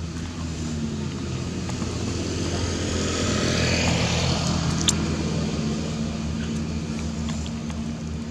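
A motor vehicle engine running steadily as a low hum, with noise swelling louder around three to four seconds in and a single sharp click just before five seconds.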